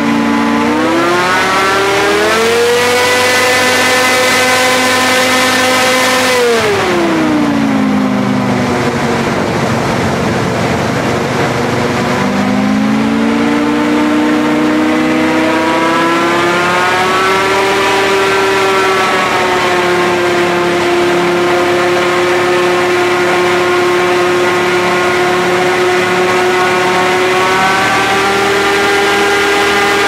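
Diesel airboat engine and propeller running under way. The pitch climbs as the throttle opens about a second in, holds, falls away around seven seconds in, then climbs again around twelve seconds and stays steady, over a constant rush of air and water.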